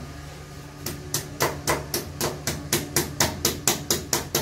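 Sharp, evenly spaced knocks, about four a second, starting about a second in: a wall plug being tapped into a hole drilled in a concrete wall.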